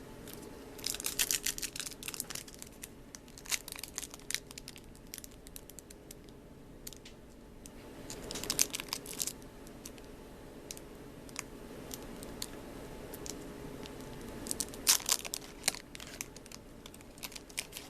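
Foil booster-pack wrappers being torn open and crinkled by hand, in bursts of sharp crackling with pauses between.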